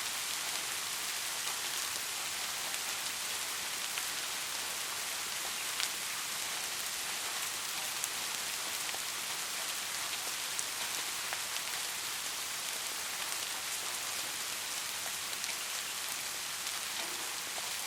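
Steady heavy rain falling, an even hiss with occasional louder individual drops.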